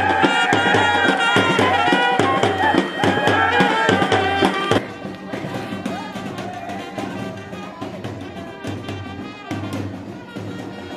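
Loud dance music with a brass melody over drums. About five seconds in it drops suddenly to a lower level and carries on more quietly.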